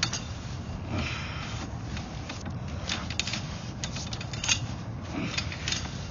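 A sewer inspection camera's push cable and head being worked through a drain pipe, with irregular clicks, rattles and scraping, the clicks coming thicker in the second half.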